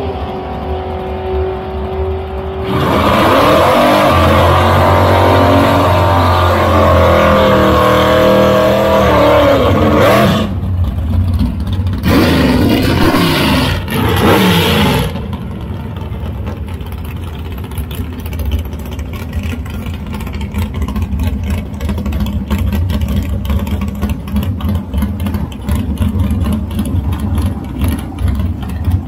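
Drag-race car engines at full throttle, their pitch climbing and dropping through the gear changes as the cars pull away down the track, followed a few seconds later by a second short blast of hard revving. After that a car's engine settles to a choppy, rumbling idle as it creeps toward the starting line.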